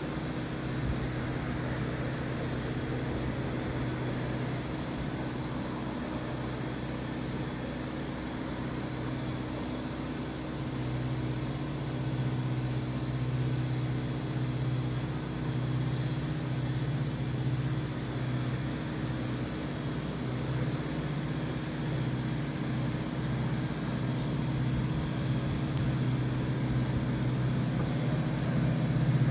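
Low, steady engine hum of an approaching freight train's locomotive, slowly growing louder toward the end as the train draws near.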